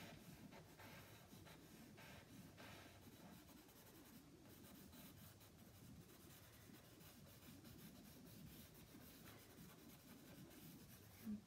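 Willow charcoal stick scratching faintly over cartridge paper in repeated short shading strokes.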